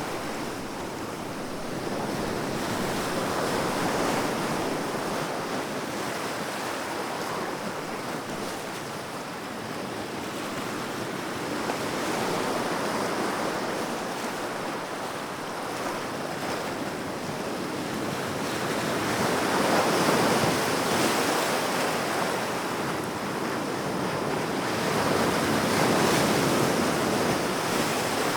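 Ocean waves breaking and washing on the shore, the surf swelling and easing in slow surges every several seconds.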